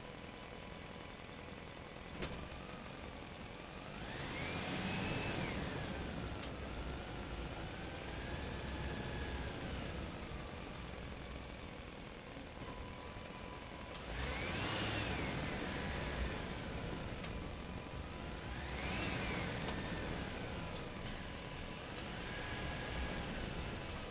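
Small electric motors of a radio-controlled toy excavator whining as it works its boom, arm and turntable, the pitch rising and falling in several spells.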